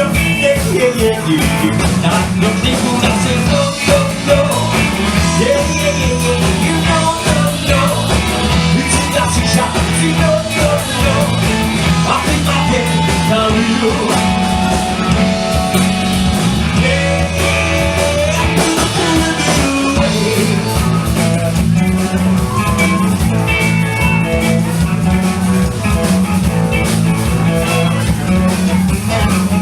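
A live four-piece band playing a bluesy rock number, with guitar carrying the melody over a steady bass line; no words are sung.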